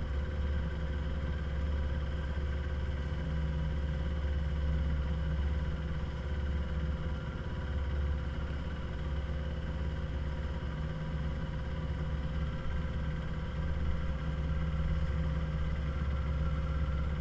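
Engine of a small Rhino speedboat running steadily under way: a constant low drone.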